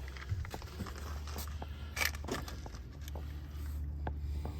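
Small scattered clicks and scrapes of metal brake pads being handled and slotted into a disc brake caliper bracket, with a sharper click about two seconds in, over a steady low hum.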